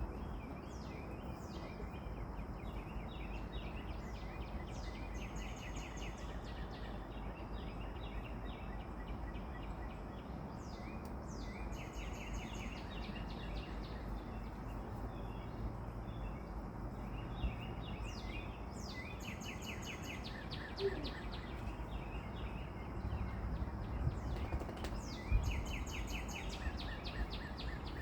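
Small birds chirping and trilling again and again over a steady low outdoor rumble, with a few faint knocks in the second half.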